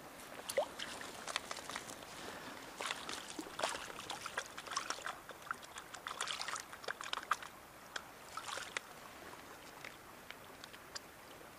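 Irregular small splashes and trickling water from a chub being handled in a landing net at the surface of a shallow river.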